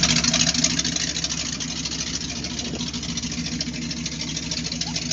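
1977 Ford F-350 dually's V8 engine idling steadily.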